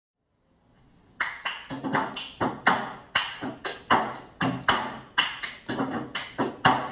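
Cup-game percussion: a sharp, steady rhythm of hand claps and plastic cups struck on a table, about three to four strikes a second, starting about a second in after near silence.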